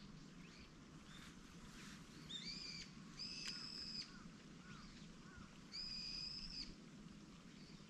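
Bird calling: three flat, high whistled notes, each under a second long, with a few faint chirps between them.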